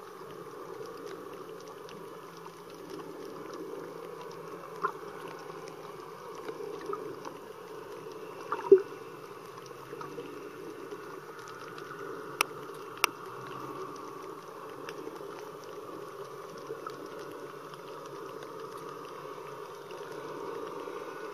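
Muffled underwater ambience on a shallow coral reef: a steady low wash of water noise, broken by a few sharp clicks, the loudest about eight and a half seconds in.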